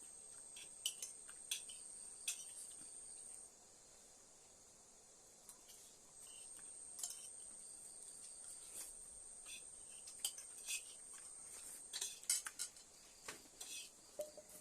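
A night insect shrilling one steady high-pitched note that breaks off for a few seconds and then resumes, with scattered clinks of cutlery on a dish that come thicker near the end.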